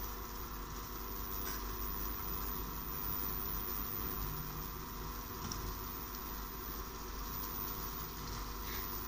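Steady hiss of chillies, shallots and garlic frying in oil in a pan on an induction hob, over the hob's constant cooling-fan hum, with a few faint ticks as sliced chillies and petai beans drop into the pan.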